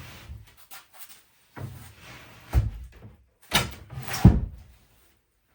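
A run of wooden knocks and thumps with rubbing between them, the loudest thump a little after four seconds in, as boards or cabinet parts are handled.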